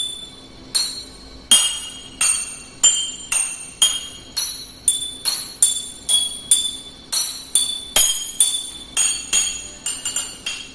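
Drinking glasses and a glass jar holding different levels of water, struck one after another about twice a second. Each strike rings with a clear tone, and the pitch changes from glass to glass because the water levels differ.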